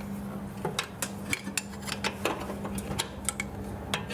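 A steel spanner clinking and ticking against the nut holding the Ford Model T's timer arm as it is fitted and tightened: a dozen or so sharp, irregular metal clicks over a steady low hum.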